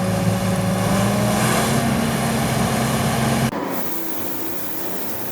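Antique John Deere 4400 combine running as it drives past, a steady engine note that rises slightly in pitch about a second in. About three and a half seconds in the sound cuts off abruptly to a quieter, fainter engine hum.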